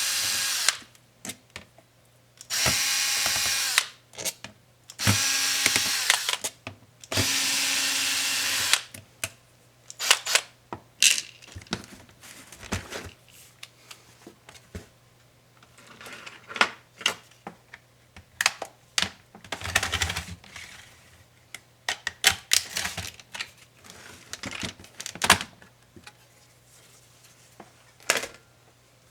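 Small electric screwdriver running in four short bursts of a second or so, backing screws out of a laptop case, then scattered clicks and rattles of screws and plastic parts being handled.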